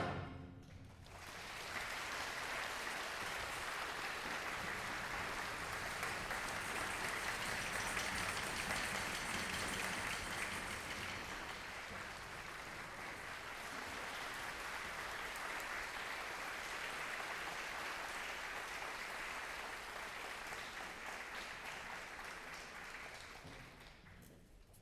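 Audience applauding after a wind band piece ends. The applause rises about a second in, holds steady, then fades away near the end.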